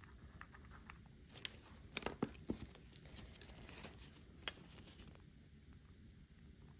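Small crackling, scratching and clicking as old adhesive is scraped off the iPhone's camera lens ring. The sounds cluster from about a second in to about five seconds in, ending with one sharp tick.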